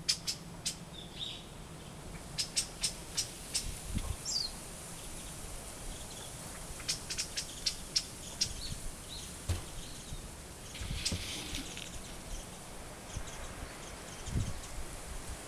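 Birds calling outdoors: several runs of short, sharp high chips at about four a second, with a brief falling note about four seconds in.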